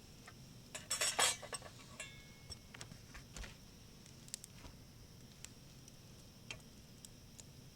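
Utensils clinking and knocking against cookware and dishes, with a cluster of sharper clinks about a second in and scattered single clicks after.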